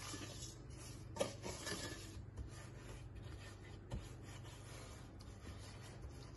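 Wooden spoon scraping and stirring butter and brown sugar in a stainless-steel saucepan: a faint, scratchy rasping with a couple of light knocks.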